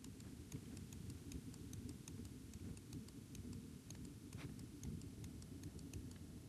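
Faint, irregular computer mouse clicks over a low, steady hum.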